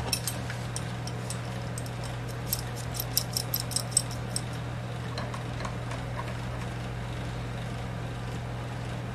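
A quick run of light metal clicks and clinks as a steel adjustable wrench is handled and set onto a bolt head, over a steady low hum.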